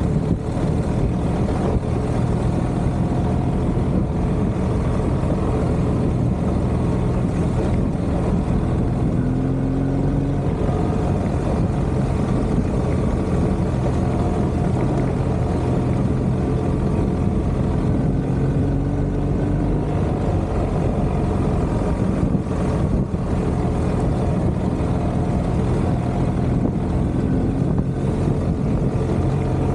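BMW R 1250 GS Adventure's boxer-twin engine running steadily on a dirt track, heard from the bike itself under a constant rush of wind and riding noise. The engine note rises briefly a couple of times.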